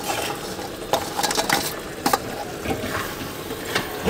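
Fried paneer cubes scraped with a steel spoon from a steel bowl into a kadai of gravy, then stirred with a steel ladle: a few sharp metal clinks and scrapes over the gravy sizzling in the pan.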